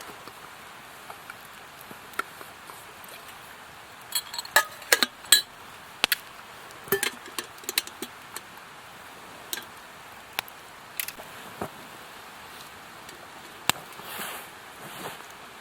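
Camp cookware and utensils clinking and knocking at irregular intervals, with a quick run of sharp clinks about four to five seconds in.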